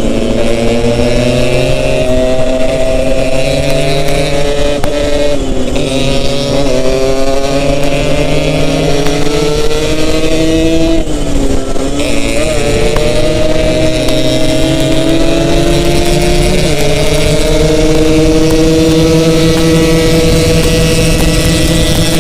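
Yamaha RX-King's two-stroke single-cylinder engine under way, its pitch climbing slowly and dropping back three times as the rider changes throttle or gear.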